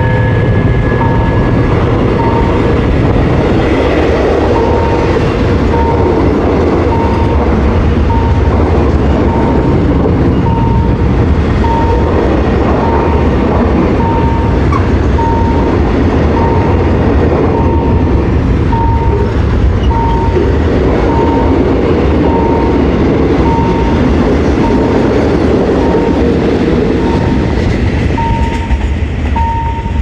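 A long freight train of container flatcars rolling past with steady rumble and wheel clatter, while a level-crossing warning bell rings about once a second.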